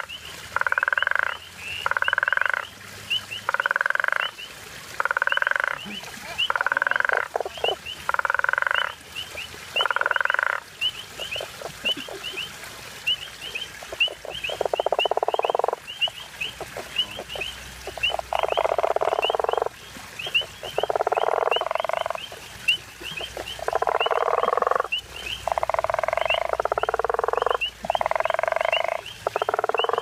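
Male guttural toads (African common toads) giving their pulsed, snoring breeding calls. For the first ten seconds they come about one a second; after a short pause the calls run longer and overlap one another. A fast, high chirping runs steadily behind them.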